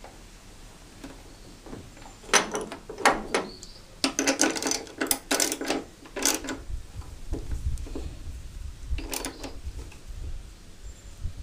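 Hand tools working on car bolts: bursts of metallic clicking and clanking, like a socket ratchet being worked, with a low rumbling in the second half.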